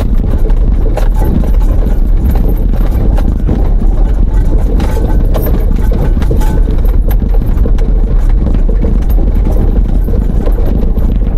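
A vehicle driving over a rough, bumpy unpaved track: a steady low engine and road noise with frequent small knocks and rattles.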